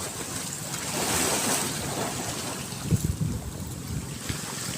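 Rushing noise of water and wind on the microphone, swelling about a second in, with a few short knocks about three seconds in.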